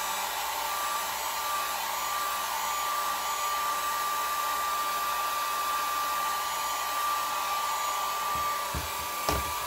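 Small handheld hair dryer running steadily, a rush of air with a steady high whine, held close to a canvas to dry the wet paint.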